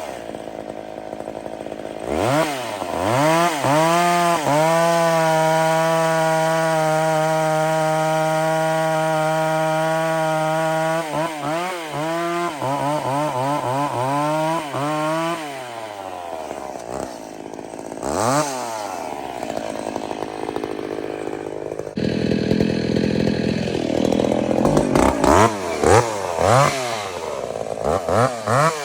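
A vintage two-stroke chainsaw, about 50 years old, being revved: it rises to a steady full-throttle pitch held for about seven seconds, is blipped several times, drops to idle, then runs harder again with its revs rising and falling quickly.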